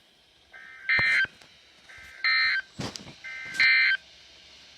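NOAA Weather Radio Emergency Alert System end-of-message signal: three short bursts of warbling two-tone SAME digital data, about a second and a half apart. A single knock sounds between the second and third bursts.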